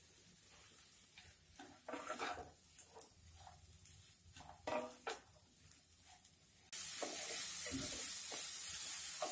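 Wooden spatula stirring chopped spring onions in a non-stick kadhai, with a few soft scrapes and knocks. About two-thirds of the way through, a steady oil sizzle starts suddenly as the spring onions fry.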